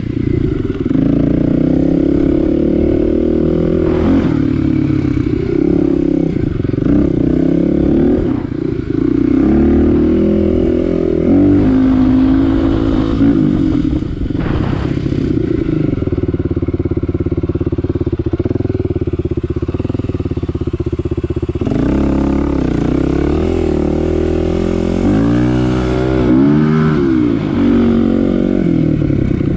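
Kawasaki KLX 250's single-cylinder four-stroke engine running under way on a dirt trail, revs rising and falling with the throttle, with a quick dip and climb in pitch near the end.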